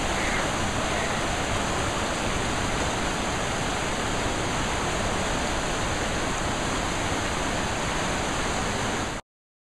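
Fast mountain river rushing over rocks in white-water rapids, a loud steady rush of water that cuts off suddenly near the end.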